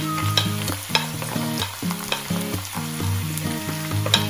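Flaked canned tuna sizzling as it lands in hot oil with chopped garlic and red onion, with the wooden spatula tapping and scraping as it pushes the tuna off a plate. Background music with low stepping notes plays underneath.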